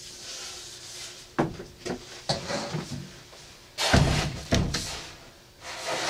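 A sharp knock about a second and a half in, a few lighter clatters, then two heavy thuds around four seconds in.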